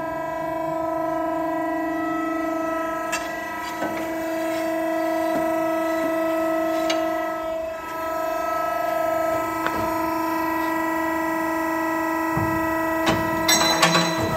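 Kingsland 85XS hydraulic punch and shear running idle, its 7.5 kW motor and hydraulic pump giving a steady whine. A few metal clanks sound as a steel flat bar is handled on the machine's tables, with a quick cluster near the end as the bar is set against the shear blade.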